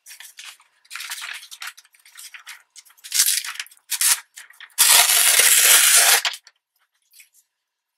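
Magazine paper rustling as it is handled, then a loud tear lasting about a second and a half, a strip being ripped from a glossy magazine page.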